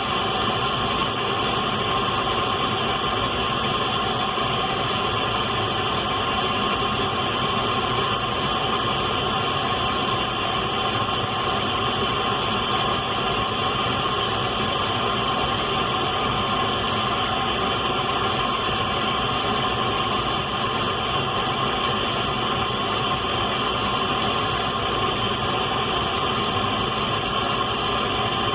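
Radio static: a steady, unchanging hiss with no breaks or knocks.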